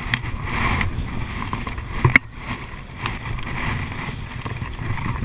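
Double-bladed kayak paddle strokes swishing and splashing in the water beside an inflatable kayak, over a steady low rumble. A sharp knock about two seconds in.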